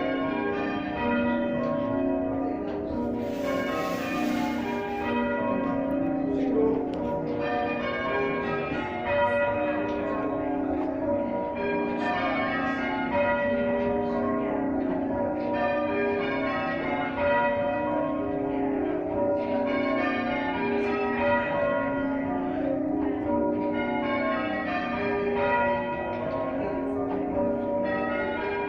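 Church bells ringing in a steady, unbroken run of overlapping strikes, each note ringing on under the next. A brief hiss rises over the bells about three seconds in.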